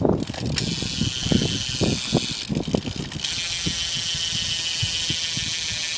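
Freewheel clicking of a BMX Sputnik Rewind rear hub as the wheel spins and coasts, heard as a fast, continuous buzz of pawl clicks. It breaks off briefly about two and a half seconds in, then runs steady again. Low knocks from the bike being handled come in the first three seconds.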